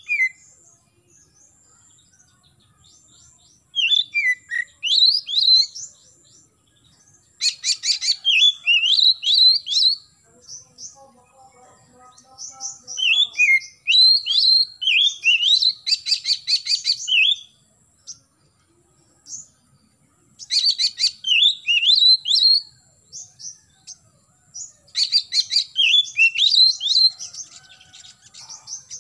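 Oriental magpie-robin singing in repeated bursts a few seconds apart: quick whistled slurs mixed with fast, harsh rattling notes.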